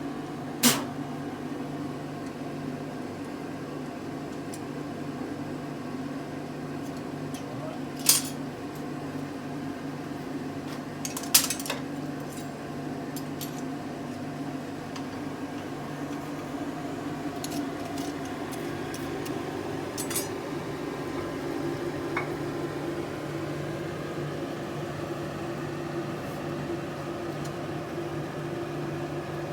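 A steady machine hum, with a few sharp clinks of metal tongs and steel stock being handled at the forge. The hum gets a little louder in its middle range after about twenty seconds.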